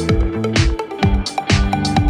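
Electronic dance music with a steady drum beat, about two beats a second, over held synth notes.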